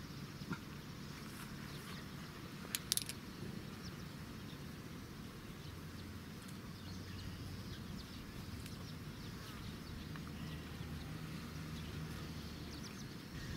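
Quiet outdoor background: a steady low hum, with a few light clicks about three seconds in.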